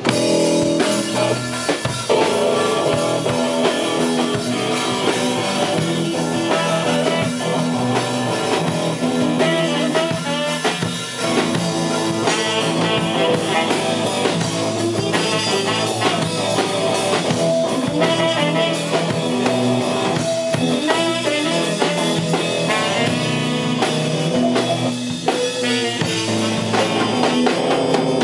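Live blues-rock band playing: a Pearl drum kit keeping the beat under electric guitars and bass, with trumpet and saxophone in the mix.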